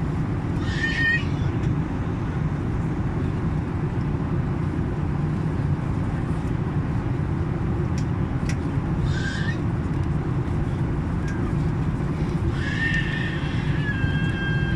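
Steady low rumble of an airplane, with short high-pitched calls over it about a second in, around nine seconds, and a longer one near the end.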